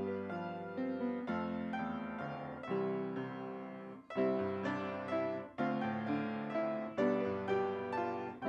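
Piano playing a slow piece of sustained chords, each struck and left to fade before the next, about one a second.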